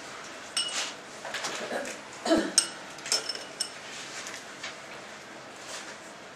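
Felt-tip marker squeaking and scratching on flip-chart paper as words are written: a run of short, sharp squeaky strokes over the first three and a half seconds, then only a few faint ones.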